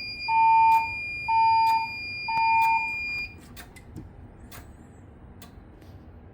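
Fire alarm voice-evacuation speakers of a Siemens Desigo Modular XLS-V system sounding the temporal-three evacuation tone between voice messages: three long beeps about a second apart. A steady high whine runs under them and cuts off just after the third beep, followed by a few faint clicks.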